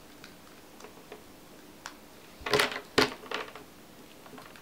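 Hard plastic LEGO parts clicking and rattling as hands fit wheels onto a LEGO train motor, with a few light clicks and then a short cluster of sharper clicks about two and a half seconds in.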